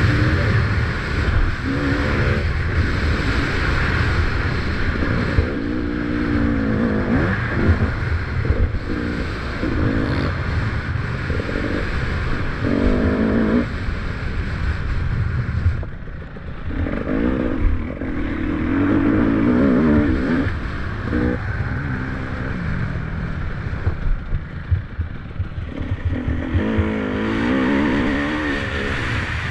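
300 cc two-stroke enduro motorcycle engine revving up and down in repeated bursts as it is ridden around a motocross track, easing off briefly about halfway through. A steady low rumble and clattering knocks run underneath.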